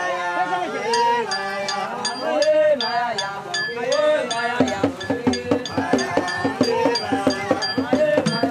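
Singing voices over percussion: a metallic clink struck on a steady beat, with fuller drum strokes joining about halfway through.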